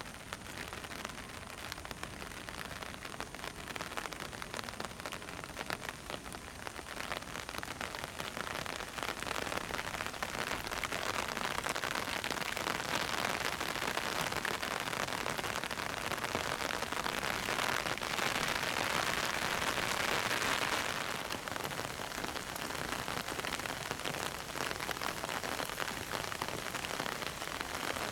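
Heavy rain pouring down in a steady hiss, growing heavier about a third of the way in and easing slightly again later.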